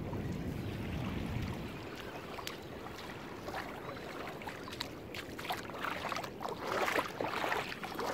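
Wind rumbling on the microphone, then a run of small splashes of shallow river water that grows busier and louder near the end.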